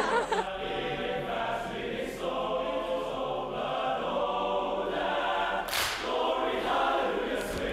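Male choir singing held chords a cappella, with a single sharp clap-like hit about six seconds in.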